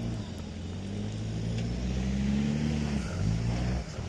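Nissan Patrol 4x4's engine running under load off-road, its note rising slowly and dipping briefly near the end.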